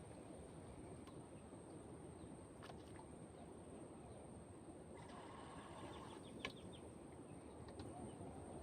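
Faint, steady outdoor background noise with a thin high steady tone. A brief pitched call comes about five seconds in, and there are a few sharp clicks, the loudest about six and a half seconds in.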